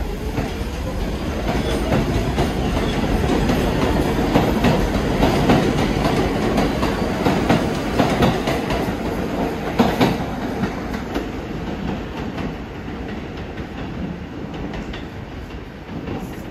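New York City subway train running past, its wheels clattering rapidly over the rail joints; a rising motor whine is heard right at the start, and the sound builds to its loudest in the middle before slowly fading.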